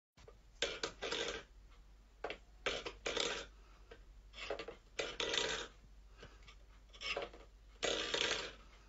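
A cat pawing its steel food bowl across a wooden floor: a string of short metal-on-wood scrapes and clatters at irregular intervals.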